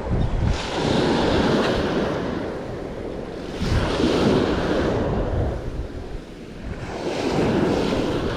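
Waves washing in at an inlet with strong wind buffeting the microphone, a rushing noise with a low rumble that swells and eases in surges every few seconds.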